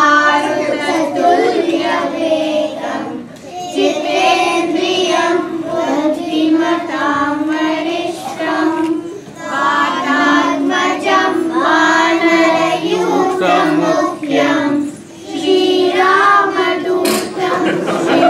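Young children singing a song into stage microphones, with held notes and short pauses between phrases.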